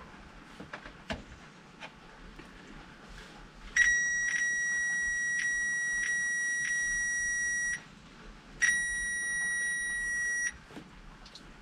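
Power Probe circuit tester giving a steady high-pitched tone twice, about four seconds and then about two seconds, as its tip touches a live wire under the dash: the tone signals 12-volt switched power present.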